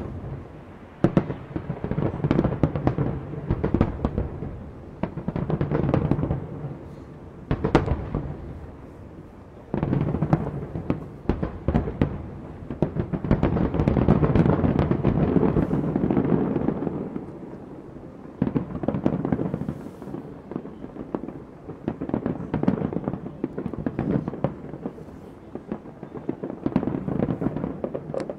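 Aerial fireworks display: many sharp bangs over dense crackling, rising and falling in waves, with the loudest stretch around the middle.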